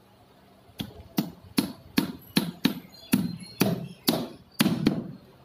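Claw hammer striking a wooden shuttering (formwork) box: about ten quick blows, two or three a second, starting about a second in.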